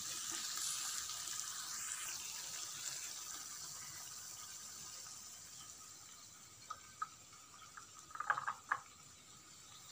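Oil and masala in the pan of stuffed brinjals sizzling and slowly dying away, the gas having just been switched off. Near the end come a few light clinks of a steel spoon against the pan and plate as the brinjals are lifted out.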